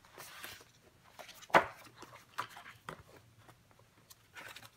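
Handling noises as a paper notebook is worked into a leather folio cover: brief rustling and soft taps, with one sharp knock about one and a half seconds in.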